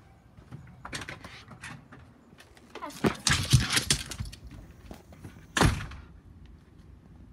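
Knocks and clattering as a door is opened and pushed shut, loudest about three to four and a half seconds in, with one sharp thump just before six seconds, mixed with the rustle of a phone being jostled.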